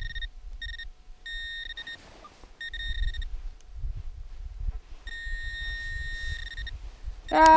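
A metal detector's target tone, a steady high beep that sounds in short broken pieces several times and then once for about a second and a half, as the coil or pinpointer passes over the target. The target is a buried beer bottle cap. A loud falling vocal sound starts right at the end.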